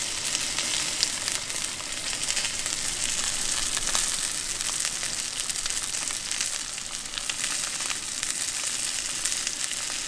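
Steak searing in hot oil in a cast-iron skillet: a steady sizzle with many small crackles of spattering oil.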